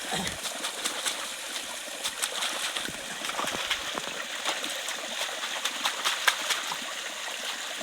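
Small river water trickling steadily, with many small splashes and clicks throughout.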